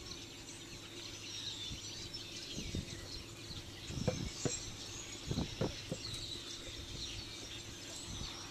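Small birds chirping and twittering in the background over a steady low hum, with a few short, soft low sounds in the middle.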